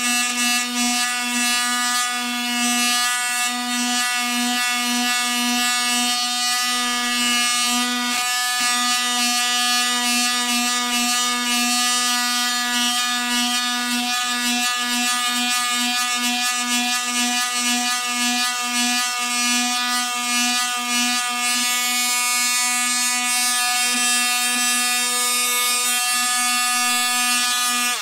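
TackLife PT01B 12-volt multi-tool with its detail-sander head, the triangular sanding pad buzzing against a small wood block to smooth it. A steady, loud buzzing whine over a strong hum, wavering a little as the pad is pressed on. It dips briefly about eight seconds in and cuts off at the end.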